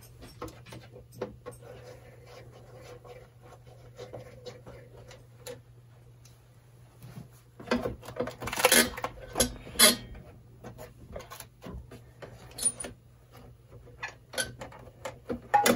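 Clicks, knocks and scraping of a vintage radio's chassis being worked out of its Bakelite cabinet, with a dense run of clattering a little past halfway.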